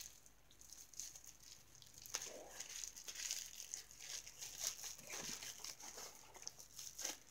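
Faint, intermittent rustling and crinkling as a small cloth drawstring bag is handled and worked open by hand.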